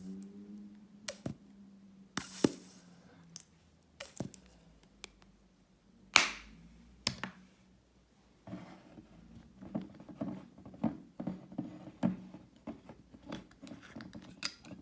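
A spoon knocking and scraping in a bowl while mayonnaise and olive oil are spooned in: scattered sharp clicks and taps with a few brief scrapes, turning into a quicker run of small knocks about halfway through.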